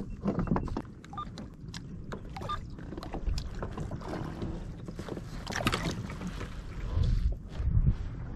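Water sloshing and splashing against the side of a kayak, with wind buffeting the microphone in a low rumble and scattered knocks and clicks. The low rumble swells about seven seconds in.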